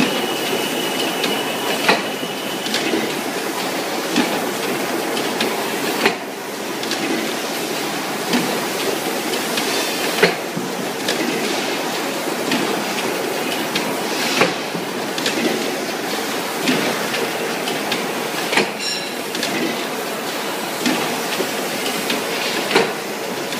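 Automatic rotary blister sealing machine running: a steady mechanical clatter full of small clicks, with a sharper knock about every four seconds as it cycles.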